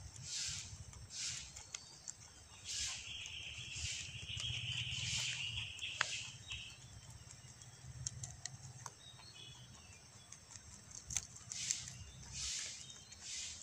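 Rabbit biting and chewing a broad leaf close up: soft crunches and leaf rustles every half second to a second. A steady high buzz joins in for about four seconds from about three seconds in.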